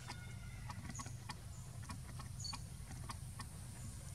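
Outdoor forest ambience: a steady low rumble under short, high chirps and scattered sharp clicks that come about twice a second.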